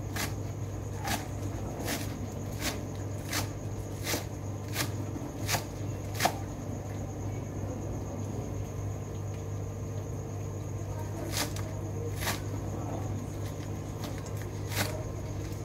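Chef's knife chopping green onions on a plastic cutting board: sharp knocks of the blade striking the board, about one every 0.7 s for the first six seconds, then a pause and three more strokes near the end. A steady low hum runs underneath.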